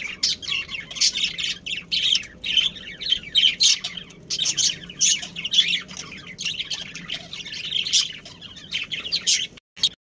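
Budgerigars chirping and chattering in a dense stream of rapid, overlapping chirps. The sound cuts off abruptly just before the end.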